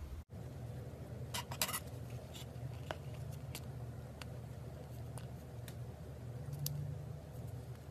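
Scissors snipping open a laundry detergent pod: scattered sharp clicks of the blades over a low steady hum.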